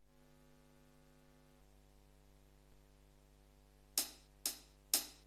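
Faint steady electrical hum, then about four seconds in a drum count-in from a Korg Pa600 arranger keyboard: three short, sharp percussion ticks about half a second apart.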